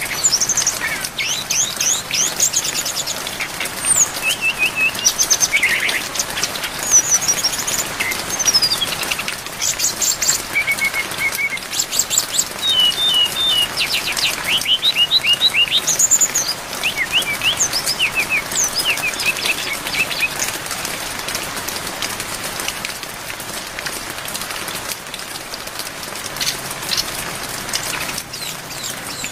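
Brown-chested jungle flycatcher (sikatan rimba dada coklat) singing a busy run of quick, high whistled and trilled phrases over a steady hiss of rain. The song thins out after about twenty seconds, leaving mostly the rain.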